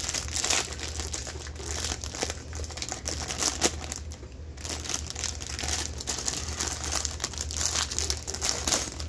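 Plastic Lego parts bags crinkling and rustling as they are handled, with many small sharp clicks and a brief lull about four seconds in. A steady low hum runs underneath.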